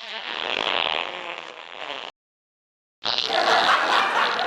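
Two fart sound effects. The first runs for about two seconds and cuts off abruptly; after a second of silence a second, louder one starts.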